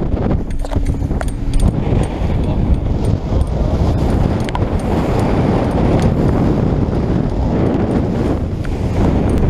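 Small motorboat pounding through gale-force rough seas: heavy wind buffeting the microphone over rushing water and spray, with scattered sharp knocks of the hull and spray striking.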